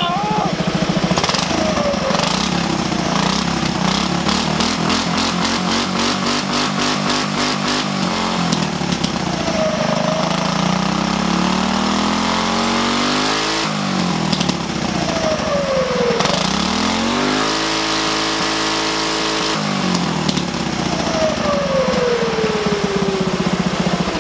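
Go-kart engine running and being revved several times, the pitch rising and then falling back each time the throttle closes.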